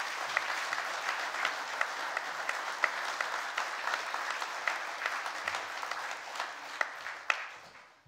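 Congregation applauding: many hands clapping together, with single sharper claps standing out. The applause dies away near the end.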